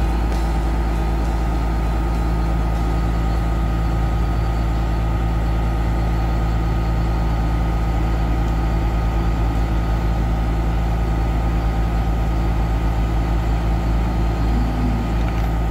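Heavy diesel engine of earthmoving equipment running steadily at low revs, a deep even rumble.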